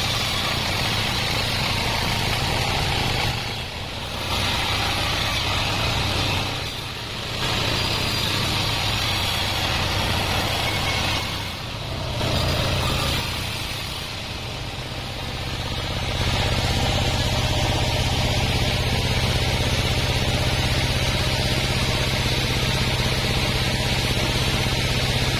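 Band sawmill running with a steady machine drone and the hiss of the blade sawing waru wood. The level dips briefly a few times in the first half, then holds steady.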